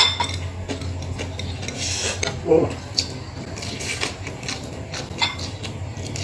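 Cutlery clinking and scraping on a plate in short, separate strokes while eating, with a brief hum from the eater about two and a half seconds in.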